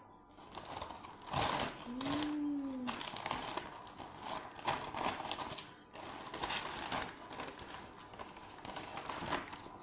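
Brown paper packaging rustling and crinkling in irregular bursts as it is handled and unwrapped by hand, with a short hummed note that rises and falls about two seconds in.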